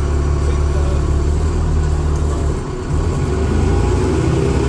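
Dennis Trident II double-decker bus's diesel engine and Voith automatic gearbox running, heard from inside the bus. The engine note dips briefly a little past halfway, then picks up again.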